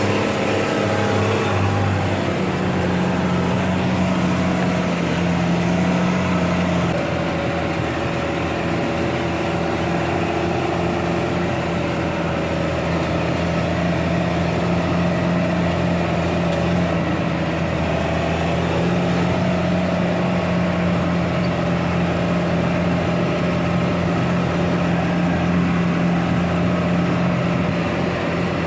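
Tractor engine running steadily during silage work, its note shifting slightly a couple of times.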